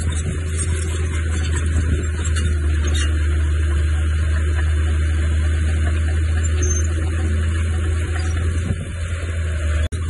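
Diesel engine of heavy earthmoving machinery running steadily, with a strong low drone. The sound drops out for an instant near the end.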